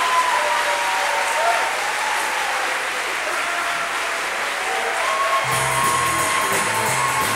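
Theatre audience applauding. About five and a half seconds in, band music with a bass line and a beat starts up under the applause.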